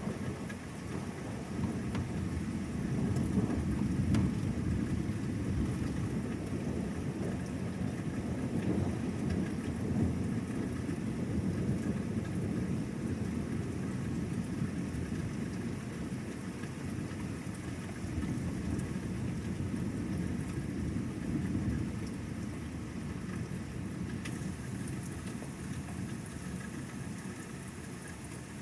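Rain falling steadily while thunder rolls in long, continuous rumbles that swell and ease, loudest in the first half and dying down near the end.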